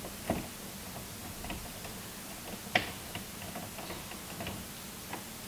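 Scattered light clicks and taps of wires and fittings being handled inside an electrical breaker panel, with a sharp click just after the start and a louder one about halfway through.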